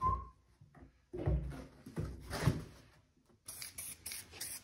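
A few dull knocks of handling the wooden crate, then, from about three and a half seconds in, an aerosol spray-paint can making a quick run of short sharp hissy bursts, about four a second.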